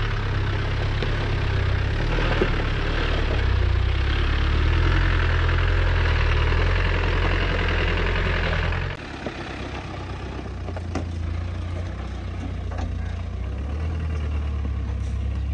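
Land Rover Discovery's Tdi turbodiesel engine running under load as the vehicle crawls up a rocky track. The sound drops suddenly about nine seconds in to a quieter engine rumble with a few sharp clicks.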